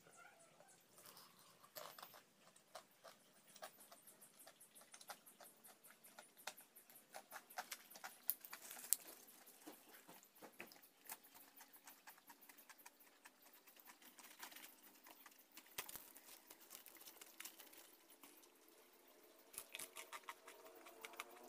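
Crispy battered fried eggplant crackling as it is pulled apart, handled and chewed: a dense run of sharp, crunchy clicks, loudest around eight to nine seconds in.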